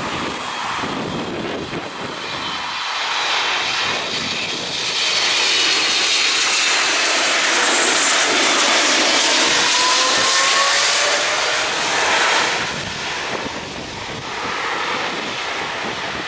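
Boeing 777-300ER's GE90 turbofan jet engines passing low and close, the roar building to a peak with whining tones that slide down in pitch as it goes by. Then the noise eases off as the jet climbs away on a go-around from an aborted landing.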